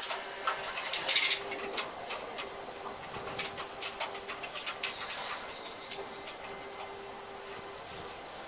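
Metal clinks, taps and rattles of parts and hand tools on a small sheet-steel grain thresher being assembled by hand, with a louder metallic clatter about a second in. A steady hum runs underneath and stops shortly before the end.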